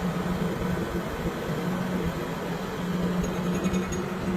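A machine running with a steady, even hum over a background of workshop noise.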